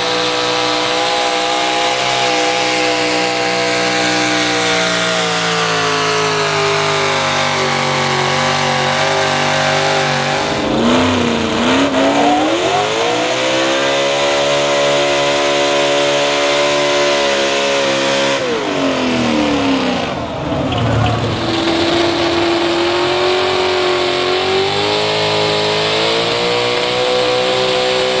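Engines of modified pulling vehicles running at high, sustained revs while dragging a weight-transfer sled down the track. The engine note dips and climbs back up twice, about a third and two thirds of the way through.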